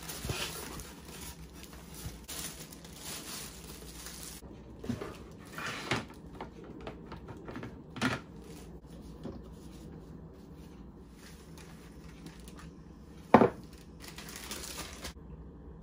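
Kitchen prep handling: packaging crinkling and rustling, then scattered clicks and knocks of dishes and utensils, with one sharp knock near the end and a little more rustling after it.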